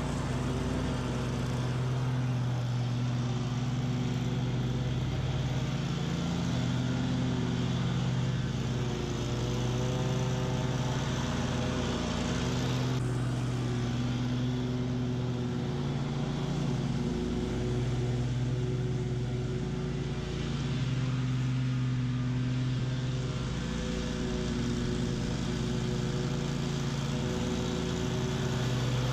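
Bob-Cat QuickCat 36-inch stand-on mower running at full throttle while cutting tall, thick weeds, its engine note sagging briefly a few times as the blades load up.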